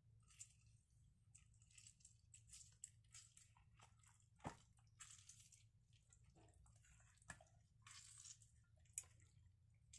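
Faint wet squishing and rubbing as hands work lemon into a raw whole chicken in a glass baking dish, with a few sharp clicks, the loudest about halfway through, over a low steady hum.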